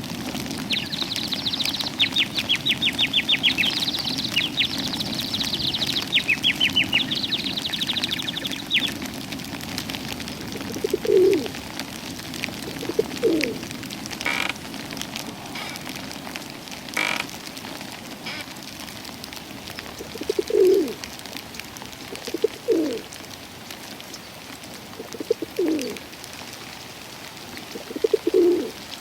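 A small songbird sings rapid high trills for about the first nine seconds. After that a pigeon-family bird gives low, soft coos, one every two to three seconds.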